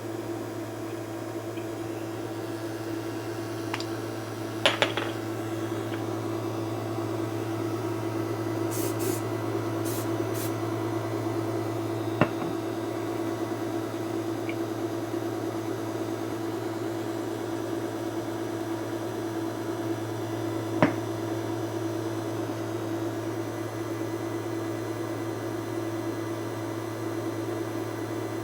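A machine running with a steady hum and hiss, with a few sharp clicks and taps along the way.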